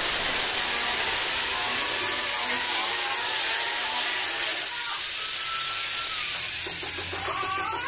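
Steady loud hiss, even and unbroken, with faint wavering tones underneath.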